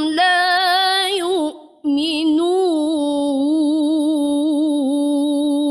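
Unaccompanied female voice chanting Quran recitation (tilawah) in the ornate melismatic mujawwad style, drawing out the closing words 'wa hum la yu'minun'. The chant breaks off briefly about a second and a half in, then resumes a little lower in one long ornamented note with a quavering, wavering pitch.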